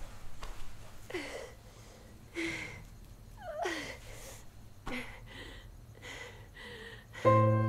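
A woman breathing heavily and unevenly, with breathy gasps and sighs about once a second, some ending in a short falling voiced sound. Piano music comes in near the end.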